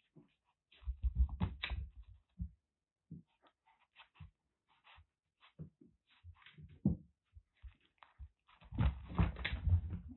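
Kitten eating imitation crab stick, with short wet clicks of chewing. Two bursts of low thumping and scuffling come from its paws on the carpet as it stamps and scrambles about, one about a second in and a longer one near the end.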